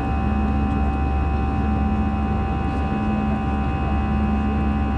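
Airbus A320 turbofan engines running at climb power, heard from inside the cabin: a steady rumbling rush with several steady whining tones over it, and a low hum that pulses about once a second.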